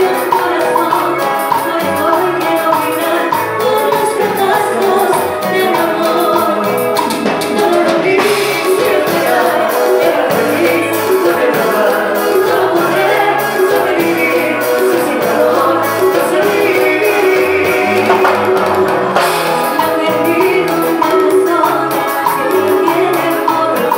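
Live band music with a woman singing lead vocals over electric guitar and a drum kit.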